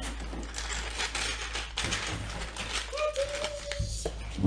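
Loose plastic LEGO bricks rattling and clicking against each other as hands sift through a pile of pieces, a dense run of small clicks.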